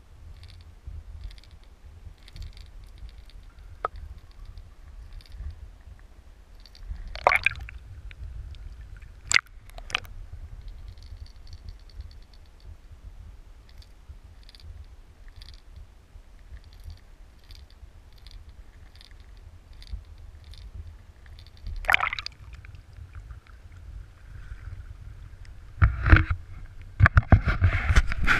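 Steady low rumble of river current against a submerged camera, with a few sharp knocks now and then. Near the end comes a quick run of knocks and clatter as the camera is handled and pulled out of the water.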